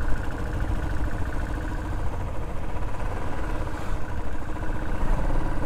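Motorcycle engine running steadily at low speed, a low even drone with rapid firing pulses.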